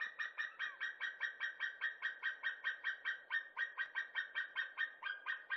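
White-tailed eagle giving its cackling call: a long, even run of high, yelping notes at about five a second.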